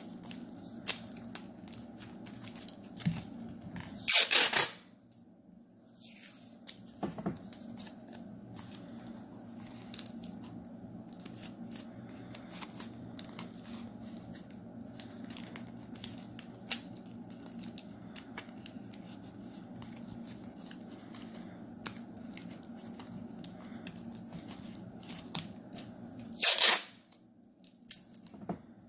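Masking tape ripped off its roll in two loud strips, about four seconds in and again near the end. In between come small crinkles and clicks as the tape is pressed down over a tin-foil form.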